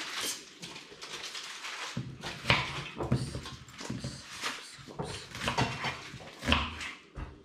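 Kitchen knife slicing a red onion on a wooden cutting board: a series of short, irregular taps and crunches as the blade goes through and meets the board.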